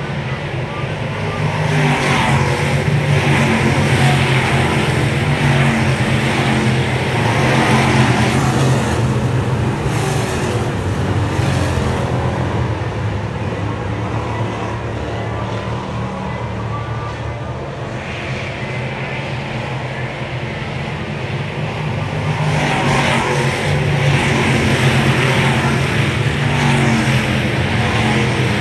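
Thunder Bomber stock car engines running at racing speed. The engine noise swells about two seconds in, eases off through the middle, and swells again near the end.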